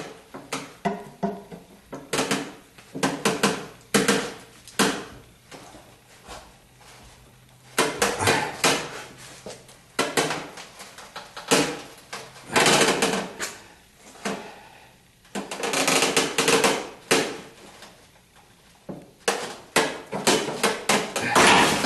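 Hand tools at work on a seized body mount bolt under a car: clusters of sharp metallic clicks and knocks at an irregular pace.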